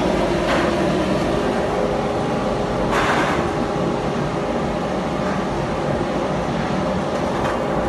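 Machinery of an EcoPro radial end trimmer running with a steady electric hum, not cutting. A knock sounds about three seconds in, with lighter ones near the start and near the end, as planks are handled on the steel roller conveyor.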